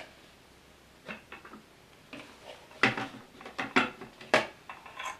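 Plastic measuring jug, funnel and film-developing tank being handled and set down in a ceramic washbasin: a string of light knocks and clatters, with the sharpest ones near the middle and toward the end.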